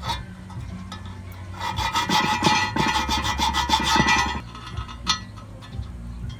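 Hand file scraping back and forth over a small steel bolt in quick, even strokes for about three seconds, then stopping. A single light knock follows about a second later.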